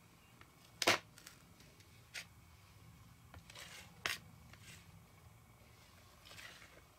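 Chef's knife cutting through a carrot slice and knocking on a plastic cutting board: a few sharp knocks, the loudest about a second in, with fainter scrapes between.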